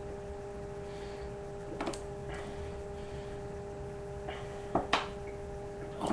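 A man chugging iced tea from a 2-litre plastic bottle: a few short, sharp drinking sounds about two seconds in and again around five and six seconds in, over a steady background hum.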